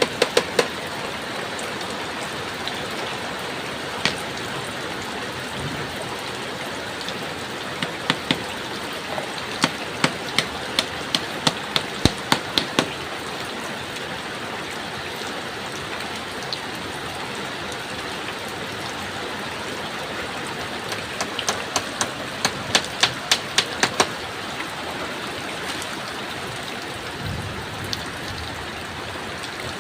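Steady heavy rain on a shelter, broken by runs of quick, sharp knocks, about two to three a second, from hand work on wood. The runs fall at the very start, in a burst about eight to thirteen seconds in, and again about twenty-two to twenty-four seconds in.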